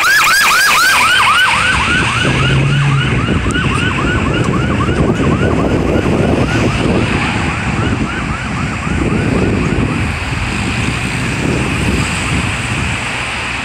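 Emergency vehicle siren on a rapid yelp, quick rising-and-falling whoops about three or four a second. It is loudest at first and fades away over about ten seconds, over steady road traffic noise.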